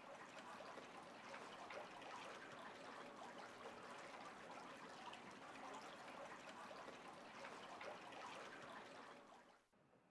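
Faint, steady trickle of running water that stops abruptly near the end.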